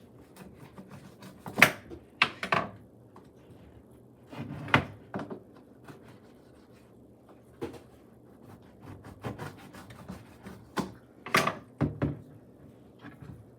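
Irregular knocks, clicks and scraping from a puzzle cube's packaging being handled and pried at while it resists opening, with the loudest clusters about two seconds in, near five seconds and around eleven to twelve seconds.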